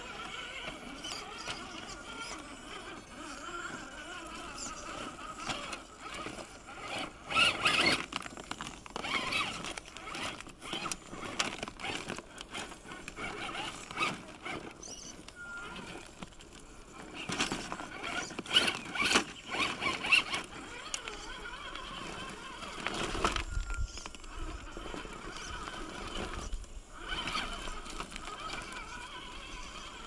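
Axial SCX10 II Deadbolt RC rock crawler's electric motor and gears whining as it crawls up rock in spurts, with many small clicks from the tyres and chassis on the stone. It is louder about 7 seconds in and again around 17 to 20 seconds.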